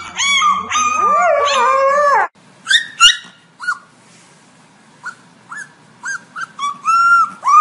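A husky puppy howls in high, wavering notes, with a second, lower howl alongside, for about two seconds. Then a puppy gives a few short high squeaks and yips, which build near the end into one long, held high howl.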